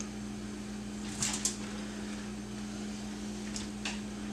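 A steady low hum under a few soft taps as pieces of green pepper are dropped onto the stuffed loaf, two light taps about a second in and two more near the end.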